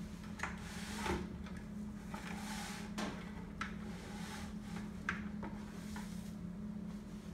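A few light clinks and knocks from a wire filter-cone stand being handled and lifted over a bucket, with brief brushing sounds, over a steady low hum.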